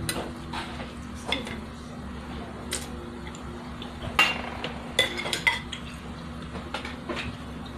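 Metal spoons and a ladle clinking and scraping against ceramic soup bowls and plates: scattered light clicks, with a few sharper ringing clinks about four to five and a half seconds in. A steady low hum runs underneath.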